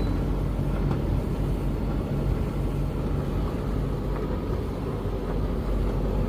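Hoover VTC5911NB tumble dryer running steadily with a low rumble and hum as the drum turns, with a swishy, hissy noise that the owner can't place and thinks is probably nothing.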